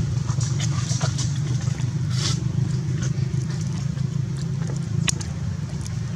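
A steady low engine hum with scattered light clicks and rustles over it; the sharpest clicks come about two and five seconds in.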